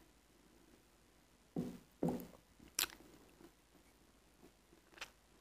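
Close-up mouth sounds of eating a thick, sour-cream-like paste of edible Astana clay mixed with water: a couple of soft, wet smacks about a second and a half to two and a half seconds in, then a sharp click near three seconds and another near the end.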